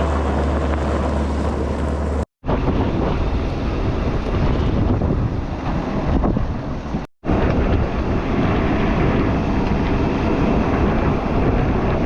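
Heavy wind buffeting the microphone over a running engine, with a steady low engine hum in the first couple of seconds. The sound cuts off abruptly twice.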